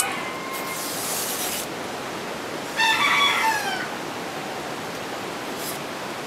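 A rooster crows once about three seconds in, a call of nearly a second that falls at the end. Around it come short raspy hisses of a bolo knife scraping along coconut leaflets as they are stripped from their midribs.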